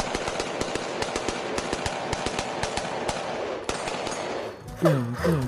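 Machine-gun fire sound for a toy gun: a rapid run of shots over a hiss, stopping about four and a half seconds in.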